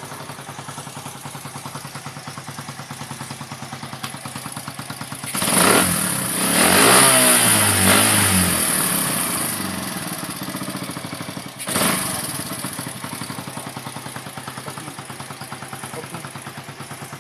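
Suzuki Raider 150 motorcycle engine running through an aftermarket 'chicken pipe' exhaust. It idles with a steady fast putter, is revved up hard about five seconds in and falls back over a few seconds, then is blipped once more sharply before settling back to idle.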